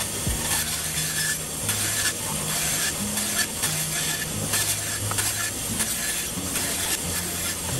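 Bandsaw cutting through a thick maple block, a steady rushing hiss of the blade in the wood, over background music with a stepping bass line.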